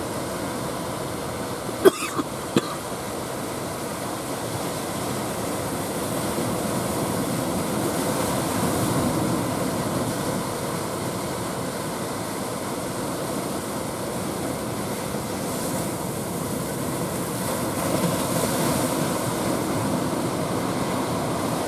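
Rough sea surf and wind making a steady rushing noise that swells gently a couple of times, with two or three sharp clicks about two seconds in.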